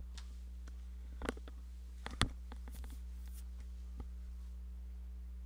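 Steady low electrical hum of the recording, with a few brief clicks about one and two seconds in and a fainter one near the end.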